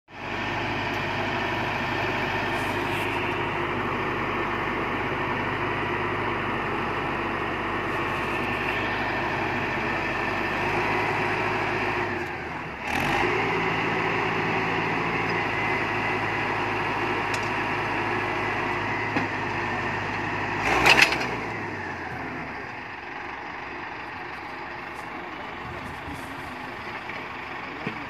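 Tractor-mounted pile-boring rig at work: the tractor's diesel engine runs steadily, driving the drill, with a brief dip and change in pitch around the middle. A little after 20 seconds there is a loud knock, then the engine slows and drops to a quieter run.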